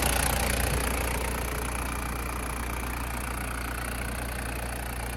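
Toyota HiLux Surf's 3.0-litre 1KZ-TE turbo diesel engine idling steadily.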